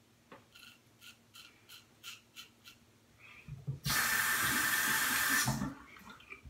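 Short, faint scraping strokes of a disposable double-edge safety razor cutting stubble, a few a second. About four seconds in, a tap runs loudly at the sink for about a second and a half.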